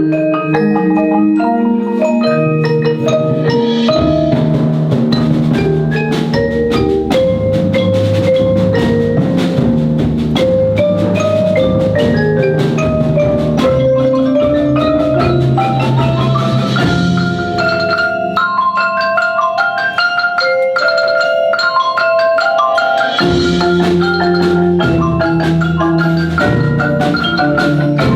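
Percussion ensemble playing, many short struck pitched notes from mallet instruments over a low bass line. The bass drops out for about five seconds past the middle, leaving only the higher notes, then comes back.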